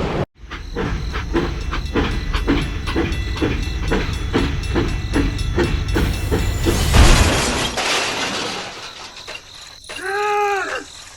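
Machine chugging in an even rhythm of about three beats a second over a low rumble. About seven seconds in it gives way to a burst of hiss that fades, and near the end comes a short tone that rises and falls.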